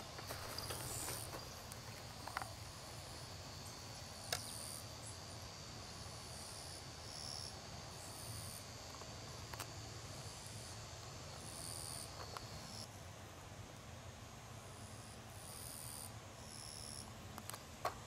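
Insects chirping in short high-pitched bursts, repeated irregularly over a steady thin high whine, with a low rumble beneath and an occasional faint click.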